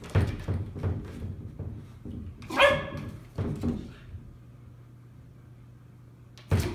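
A corgi gives one short, high bark, the loudest sound in the stretch. Before it come a few knocks and rattles of a wooden sliding door, which the dog is nosing through the gap.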